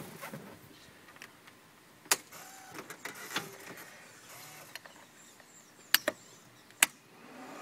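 Three sharp clicks from the dash switches of a Yamaha Rhino side-by-side with its engine off: one about two seconds in and two close together near the end, with faint fiddling sounds between.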